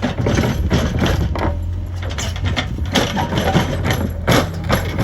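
Cat 432F2 backhoe loader's diesel engine running steadily, with irregular clanks and knocks from the working machine, about eight in five seconds.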